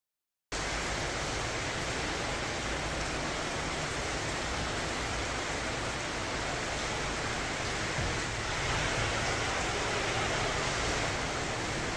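Steady rushing hiss of water jets spraying over a truck in a truck wash, starting abruptly about half a second in.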